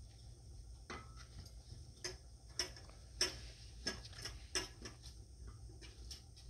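Young puppy chewing and mouthing a sneaker: a string of small, irregular clicks and taps from its teeth and paws on the shoe, roughly one every half second, thinning out near the end.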